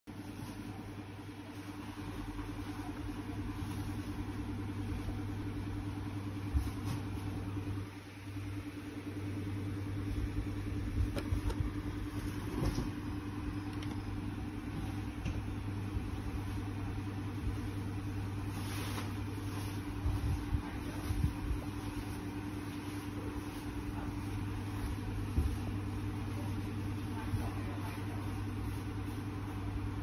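A steady low hum with a few light taps and knocks now and then.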